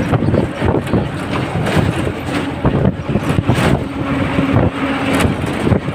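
Road and traffic noise from a moving vehicle on a bridge, with wind buffeting the microphone in gusts and a steady low hum in the second half.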